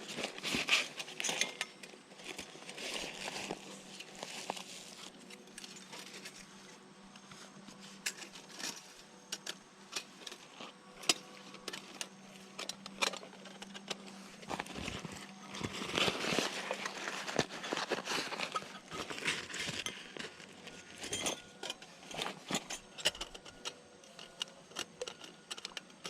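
Camping gear being handled: irregular clicks, knocks and small metallic rattles and clinks, with a faint steady hum under the first part that stops about two-thirds of the way through.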